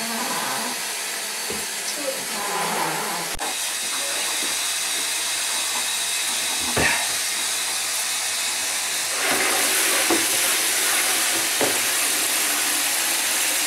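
Hand-held shower head spraying water into a plastic basin in a bathtub: a steady hiss of running water that grows louder and brighter about nine seconds in.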